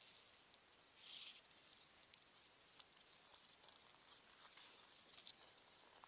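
Faint high hiss with short scratchy bursts, the strongest about a second in and again near five seconds: ice-skate blades scraping on outdoor rink ice, sped up 32 times.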